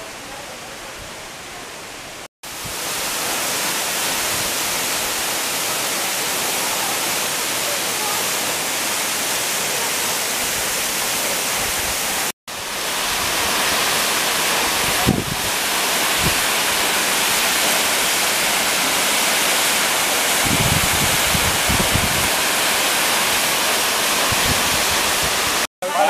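Waterfall pouring down a steep rock face: a steady, loud rushing hiss, fainter for the first couple of seconds. The sound drops out sharply twice, and a few low thuds come in the later part.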